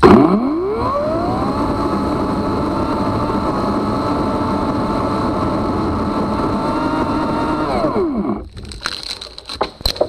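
EGO Power+ CS1800 56-volt battery chainsaw's brushless motor spinning up with a rising whine, cutting steadily through a tree limb, then winding down with a falling whine about eight seconds in. A few sharp cracks follow near the end.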